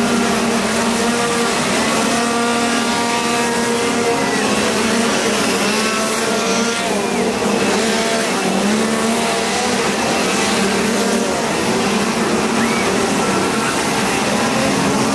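Several chainsaws revving at once, their engine notes overlapping and rising and falling as they are throttled up and let back down.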